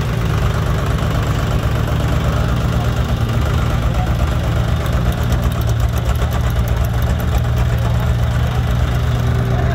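Preet 955 tractor's diesel engine idling steadily with a rapid, even diesel knock, which becomes clearer about halfway through.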